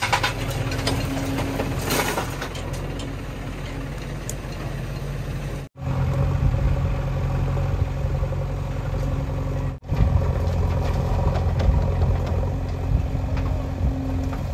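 Diesel engines of a JCB 3DX backhoe loader and farm tractors running steadily. In the first couple of seconds soil and stones pour from the backhoe bucket into a tractor trolley with scattered clatters. The sound drops out briefly twice, about six and ten seconds in.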